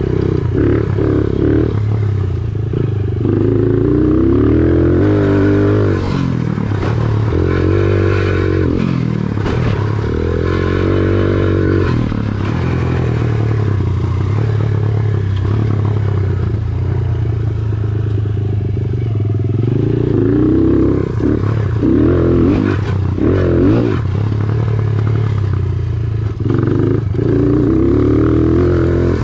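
Dirt bike engine under way on a motocross track, revving up and down over and over as the rider opens and closes the throttle, with clattering knocks from the bike over the bumps.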